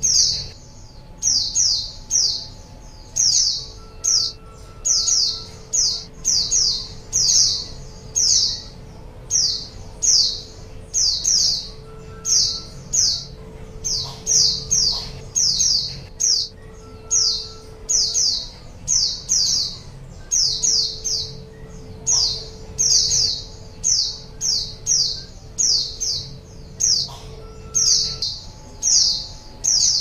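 White-eyes (pleci) calling: high, thin chirps made of short downward-sliding notes in quick pairs and triples, a group every second or so, used as a lure call to draw in pleci. A faint low hum comes and goes underneath.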